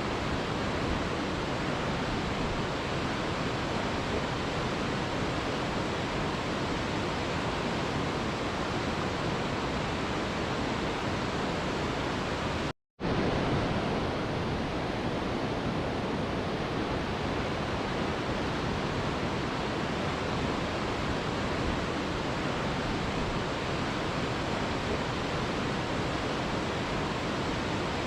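Steady, even rush of a waterfall, a constant hiss spread across low and high pitches alike. About 13 seconds in it cuts out to silence for a split second, then resumes unchanged.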